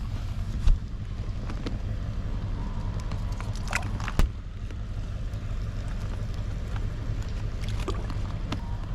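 Steady low rumble, with sharp knocks less than a second in and about four seconds in.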